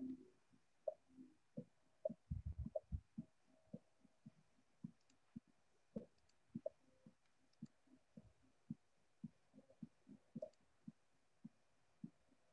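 Faint quiz-game countdown music: a soft, even beat of low thumps, about three a second, with a brief cluster of deeper thumps about two seconds in.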